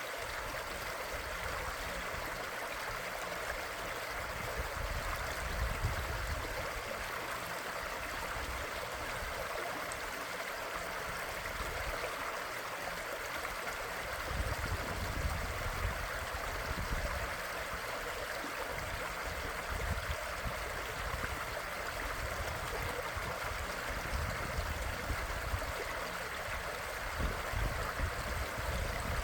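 Stream water flowing and splashing steadily, with low rumbles swelling now and then.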